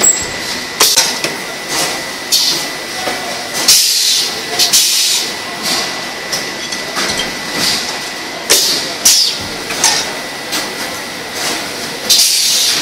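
Pneumatic 1 L paint filling machine at work: short, irregular bursts of compressed-air hiss from its valves and air cylinders, with metal paint cans clanking as they are set in place. Under it runs steady workshop noise with a thin steady whine.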